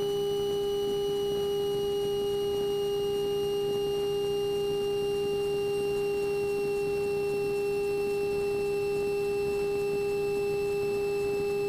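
Cockpit sound of a single-engine light plane on final approach: a loud steady tone over a low engine drone, with a fainter high whine that slowly drops in pitch.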